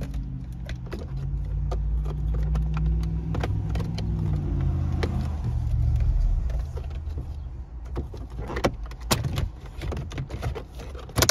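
Plastic dash trim and an aftermarket head-unit screen being handled and pressed into the dash: a run of small plastic clicks and knocks, with a few sharper snaps in the last three seconds as the mounting clips seat. A low, steady rumble sits under the first six seconds.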